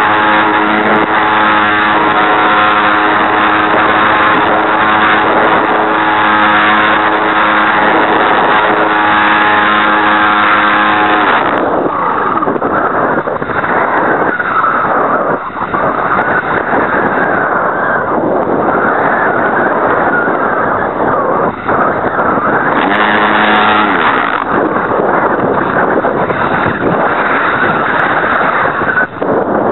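A Super Cub RC airplane's geared electric motor and propeller run at a steady high pitch, with wind rush over the onboard camera's microphone. The gearbox is broken. About a third of the way in the motor cuts out, leaving only wind noise as the plane glides, and later it comes back briefly in a short burst of throttle.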